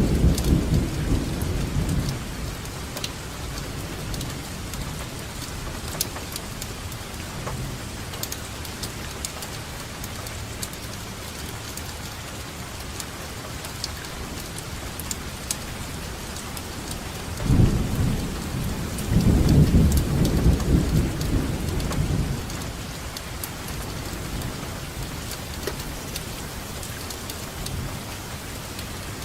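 Steady rain falling, with fine drop ticks, and rolling thunder: a low rumble dies away in the first two seconds, and another rolls in about two-thirds of the way through and lasts around five seconds.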